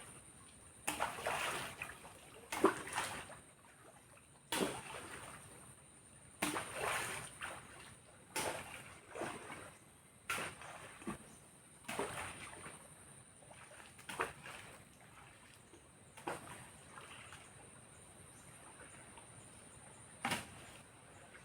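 Water splashing and sloshing in separate surges every second or two, each starting suddenly and fading out, with a steady high insect drone underneath.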